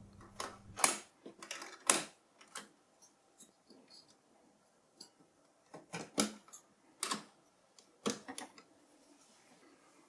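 Sharp metallic clicks and clacks from the LGA771 CPU sockets' load plates and retention levers being closed and latched over newly seated Xeon X5355 processors. The clicks come in small groups, spaced a second or more apart, with faint handling noise between them.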